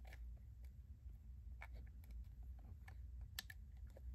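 Faint, sparse clicks of metal long-nose pliers tapping and pressing small resin 3D-printed teeth into a printed figure's mouth, with two clicks close together near the end. The teeth are not seating easily.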